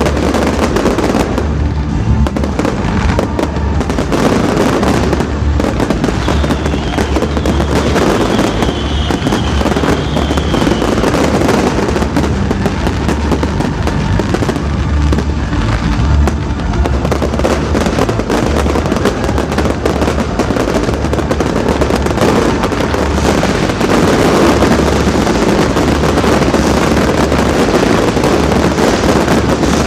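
Aerial fireworks going off in a rapid, continuous barrage of bangs and crackling, with a high whistle gliding slightly down about six seconds in.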